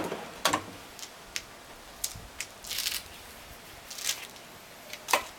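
A few short, sharp clicks and light rattles from a drawer loaded with stacked metal pots on Blum Blumotion slides as it comes to rest fully open; the loudest click comes near the end.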